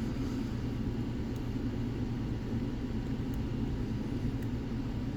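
Steady low rumble, with a few faint ticks of a hook pick working the tapered pins of a pin-tumbler lock under tension.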